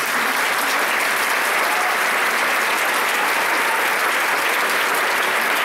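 Audience applauding, a steady unbroken clapping at an even level.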